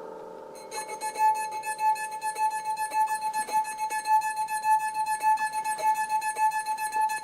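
Instrumental music: a chord fades away, then a little under a second in a plucked string instrument starts picking quickly under a long held high note.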